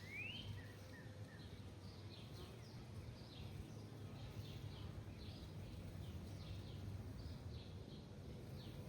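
Small birds chirping with many short, high calls, some quick rising sweeps and some brief falling notes, faint over a steady low hum.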